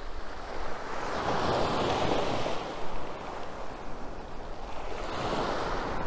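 Small sea waves breaking and washing up a pebbly sand shore, swelling twice: about a second in and again near the end.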